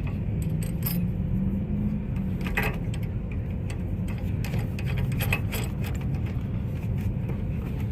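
Engine idling steadily, with scattered metallic clinks and knocks from hitch hardware being handled and fitted.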